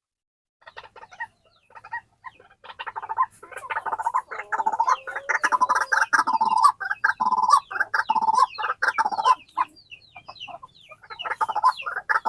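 White-breasted waterhen calling: a fast, dense series of repeated notes that starts about half a second in, grows louder, thins out briefly near the end and then picks up again.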